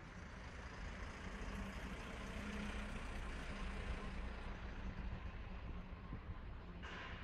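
Small Isuzu compactor garbage truck's diesel engine as the truck drives past, growing louder over the first few seconds and then fading away. A short hiss near the end.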